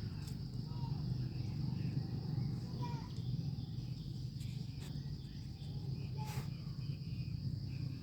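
Steady high insect drone, like crickets, over a low hum, with three faint short squeaks.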